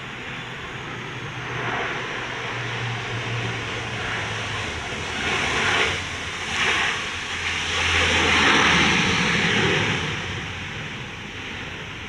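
ANA Bombardier Dash 8-400 turboprop rolling down the runway, its propellers droning with a low hum. Loud swells of rushing noise come about five seconds in and again from about eight to ten seconds.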